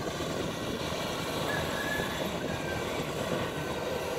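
Kubota DC-60 combine harvester's diesel engine running steadily under load as the machine climbs on its tracks up a high bank onto the road.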